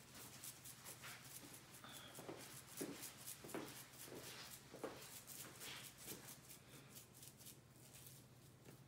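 Seasoning shaker bottle shaken over a skillet of food: faint, irregular rattling taps, a few a second, over a steady low hum.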